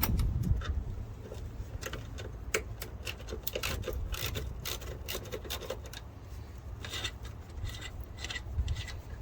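Irregular light metal clicks and scraping of a hand wrench working loose the brake line fittings on a minivan's ABS modulator, over a steady low rumble.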